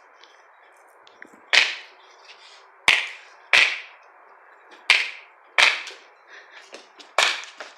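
Airsoft guns firing: about six sharp cracks at irregular intervals of roughly one second, each with a short decaying tail.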